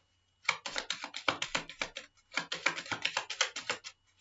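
A deck of oracle cards being shuffled in the hands: rapid runs of crisp card clicks and snaps in two bursts, with a short pause between them.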